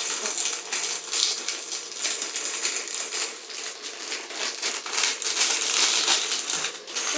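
Crinkling and crackling of plastic instant-noodle packets being handled, a dense run of small clicks and rustles.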